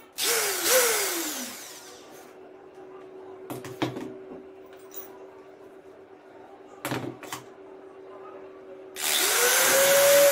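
Corded electric drill run in two short trigger blips near the start, each spinning up and winding down, then a few handling knocks. Near the end it runs again for over a second, pressed against the motorcycle helmet's shell.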